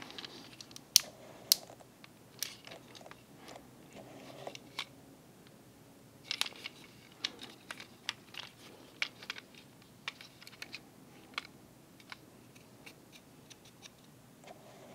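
Irregular sharp plastic clicks and snaps from a Transformers MP-54 Reboost figure being transformed by hand, its joints and panels clicking into place. The loudest two clicks come about a second in, with a quick run of clicks around the middle.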